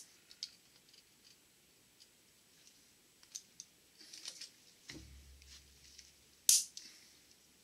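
Small metallic clicks and ticks of a steel snap ring and snap-ring pliers being worked down into the groove behind the bearing on a Borg-Warner T-10 transmission mainshaft, with one sharp, loud metal snap near the end.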